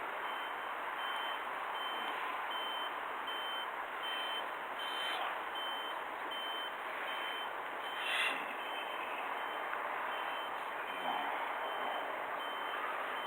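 A repeating electronic beep, about three beeps every two seconds, steady and evenly spaced, over a constant wash of background noise, with one brief louder knock about eight seconds in.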